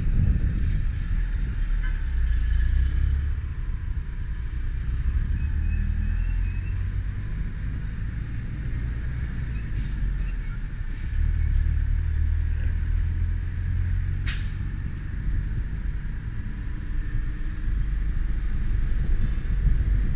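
Yamaha motorcycle running in city traffic, heard as a steady low rumble of engine and wind on a camera's built-in microphone, with a brief sharp high sound about two-thirds of the way through.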